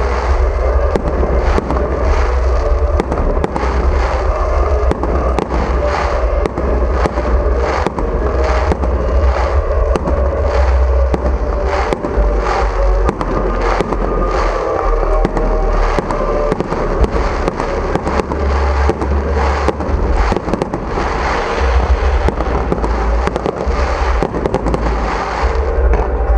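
Fireworks display: aerial shells bursting in rapid, continuous succession, many bangs a second, with music playing underneath.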